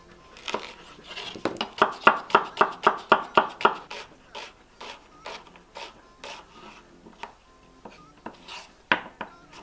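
Knife chopping onions on a cutting board: a quick run of evenly spaced strikes, about three or four a second, for a couple of seconds, then slower, scattered cuts.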